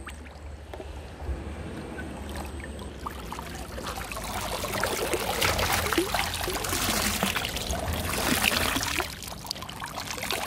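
Water splashing and pouring out of a plastic bottle-style fish trap as it is lifted from a shallow stream, building up a few seconds in and easing off near the end.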